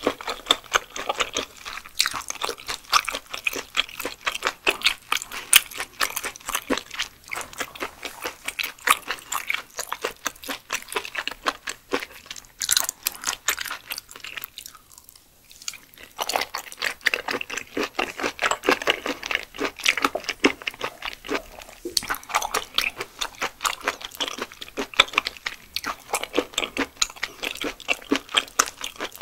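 Close-miked chewing of raw yellow stingray sashimi, a run of rapid wet clicks and small crunches from the firm, chewy flesh. It pauses briefly about halfway through, then picks up again with the next bite.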